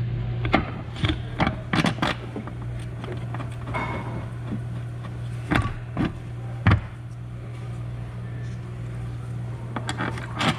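Scattered metal clicks and knocks of bolts and hand tools as a rear shock absorber's mounting bolts are put in, with the loudest knock about seven seconds in. A steady low hum runs underneath.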